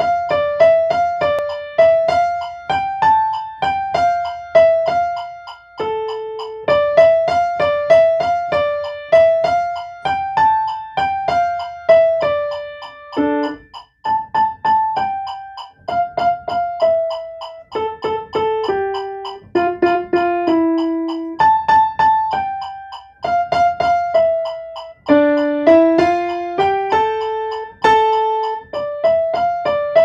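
Acoustic grand piano playing a simple piece from a beginner's method book: a melody of separate struck notes in the middle register over accompanying notes, moving in short phrases of a few seconds.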